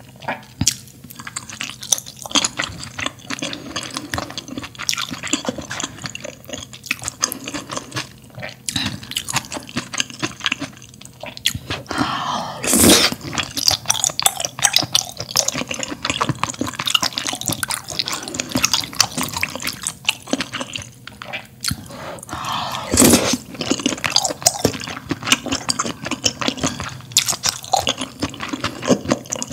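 Close-miked eating of spicy malatang: steady chewing with many wet mouth clicks and smacks. There are two louder, longer wet sounds, about thirteen and twenty-three seconds in.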